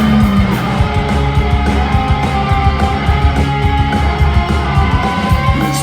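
Punk rock band playing live and loud: distorted electric guitars over bass and drums, with no vocals yet.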